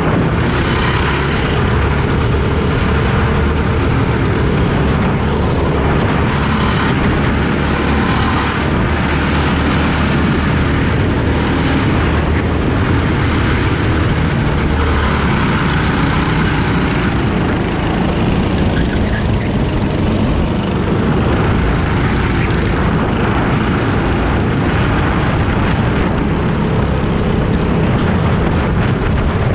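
Go-kart's small petrol engine running loud and continuous under the driver as the kart laps the track, its pitch rising and falling.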